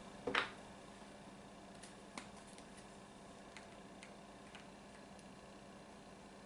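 Light clicks and taps of a plastic-capped spice jar and measuring spoon being handled: one sharper click a moment in, then a few faint scattered ticks, over a low steady hum.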